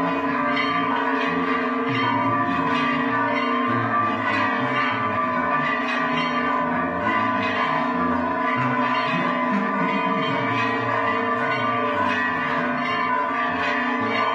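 Church bells ringing in a continuous peal, struck again and again so that their tones overlap.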